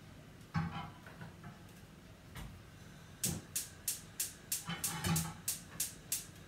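A knock as a frying pan goes onto a gas hob, then the hob's spark igniter clicking in a run of about ten sharp clicks, roughly three a second, as the burner is lit.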